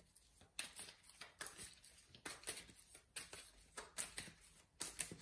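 A deck of tarot cards being shuffled by hand: a faint, irregular run of short card slaps and flicks, about three a second.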